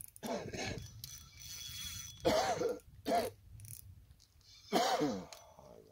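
A person coughing four times, in short separate bursts with a voiced edge; the second and last coughs are the loudest.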